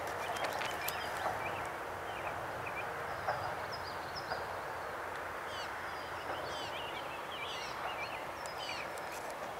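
Birds calling and singing: many short chirps and slurred whistles, growing busier after the first few seconds, over a steady outdoor background hiss. A few faint clicks near the start.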